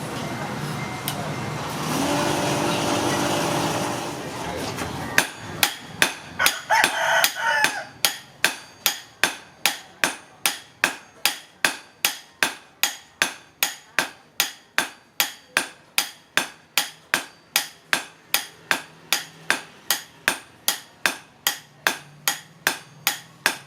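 Hammer striking metal in steady, evenly spaced blows, a little over two a second, beginning about five seconds in, each blow with a short ring: blade work on the cleaver.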